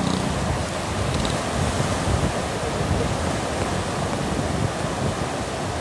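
Fast, turbulent water rushing in a strong current, a steady noise with wind buffeting the microphone.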